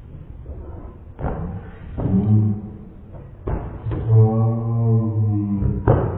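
Slowed-down replay audio of a scuffle: several thuds and deep, drawn-out voice sounds. The longest is a low held vocal sound starting about three and a half seconds in.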